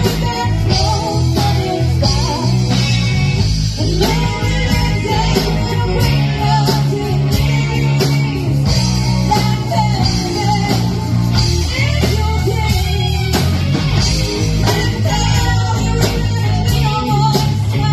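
Live blues-rock band playing, with a singer's voice over guitar, bass line and drums.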